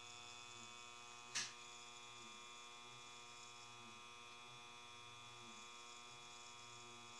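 Near silence with a steady electrical hum. One brief click about a second and a half in.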